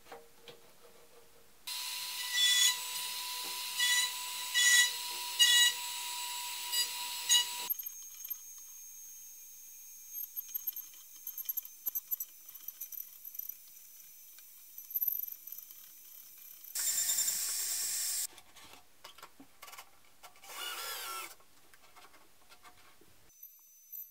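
Table-mounted wood router spinning as a square wooden block is turned against the bit in a reverse-lathe jig, heard in several stretches that start and stop abruptly. The first stretch is loud, with repeated sharp cutting peaks; a shorter loud burst comes later, then scattered short sounds.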